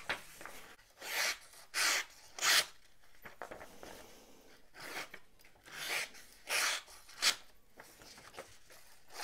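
An M390 steel blade of a Tuyaknife Envy 2 folding knife slicing through a hand-held sheet of paper. There are about seven short cutting strokes, three in quick succession, a pause of a couple of seconds, then four more.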